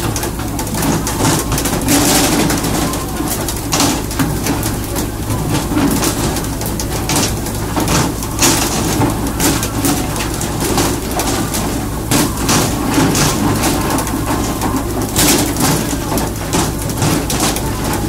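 A fishing boat's engine runs steadily under a dense wash of water spray and splashing along the hull. Scattered sharp knocks and slaps run through it, from poles and tuna hitting the deck.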